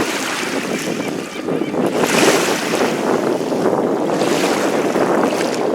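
Wind blowing over the microphone with water washing against the lake shore, a steady rush that swells louder about two seconds in and again about four seconds in.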